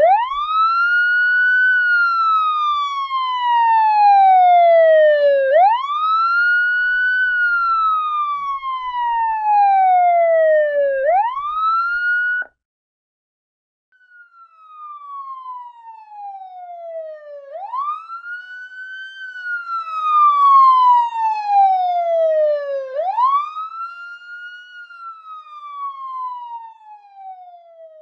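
Police siren sounding a slow wail: each cycle rises quickly in pitch and then falls slowly, repeating about every five and a half seconds. It cuts off suddenly about halfway through; after a short silence, a second wailing siren fades in, grows louder and fades again.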